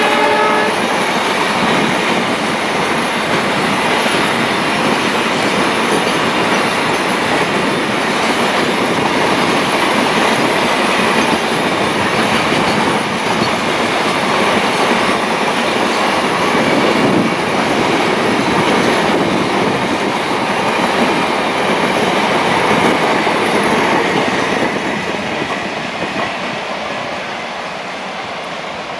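A long freight train of empty flat wagons rolling past, the wheels clattering over the rail joints, fading away over the last few seconds. A locomotive horn note, several tones together, cuts off about half a second in.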